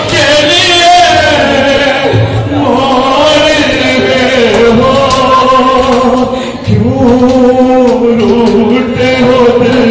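A man's voice singing a noha (Urdu lament) loudly through a microphone, in long held, wavering notes. There is a short break about two-thirds of the way through before the next line begins.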